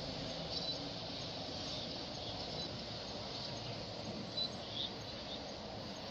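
Steady outdoor ambient hiss with a few short, faint high bird chirps scattered through it.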